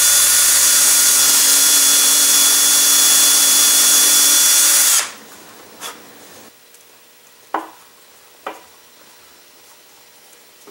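Cordless drill running steadily with a motor whine as it enlarges a pilot hole through a cardboard rocket body tube into a wooden centering ring, cutting off about five seconds in. Two light clicks follow.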